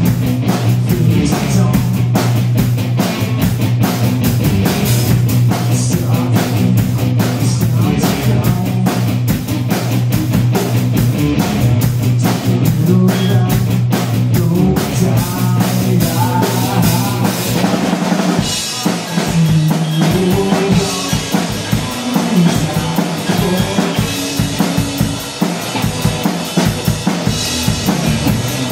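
Live rock band playing an instrumental passage: electric guitar and a drum kit with steady bass-drum and snare hits. About 18 s in the guitar part changes and the cymbals come forward.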